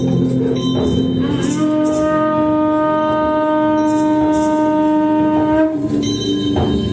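A horn-like wind instrument blown as one long steady note, starting about a second and a half in and held for about four seconds, over a lower held droning note, with a few short shaker-like rattles.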